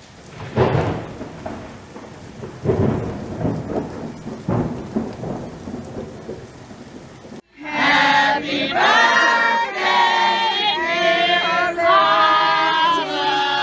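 Thunder rumbling over steady rain, with three loud rolls. It cuts off sharply about seven seconds in, and people start singing together.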